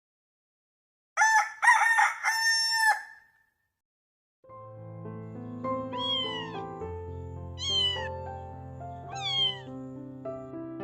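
A rooster crows once, a short cock-a-doodle-doo ending on a long held note. A few seconds later, background music starts, and a cat meows three times over it, each meow falling in pitch.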